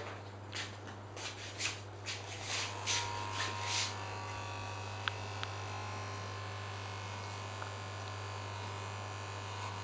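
Corded electric hair clippers buzzing with a steady low hum. Over the first four seconds a series of brief rustling strokes sounds over it, and two light clicks follow about a second later.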